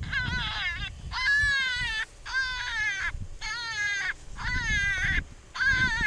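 Predator call sounding a distress cry to lure coyotes: about six short, high wailing cries in a row, each falling in pitch as it ends.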